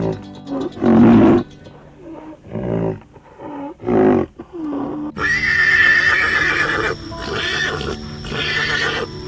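Large animal calls: a run of short, pitched calls that bend in pitch, each under a second, then from about five seconds in a sudden switch to longer, higher, shrill calls.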